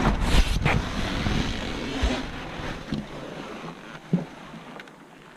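Camper trailer canvas rustling as a window corner is tugged to tidy the folding fabric, loudest in the first couple of seconds and then fading, with a few light knocks.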